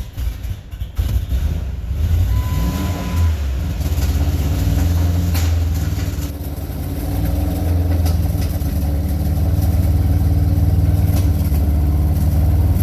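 Ford 5.4-litre V8 of a 2005 F-150 running rough on stale gasoline after sitting a long time. It runs unevenly at first, then the engine speed rises about two seconds in and holds at a steadier, louder note.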